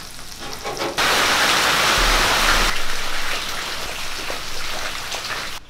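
Hot oil sizzling as marinated sardines fry, loud from about a second in, then quieter, cutting off suddenly near the end.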